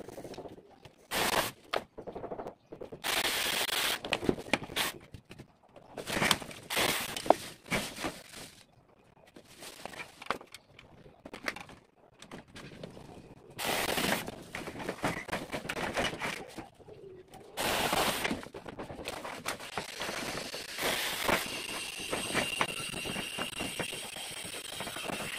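Leafy tree branches rustling and cracking as they are pulled and broken by hand, in irregular bursts with sharp snaps.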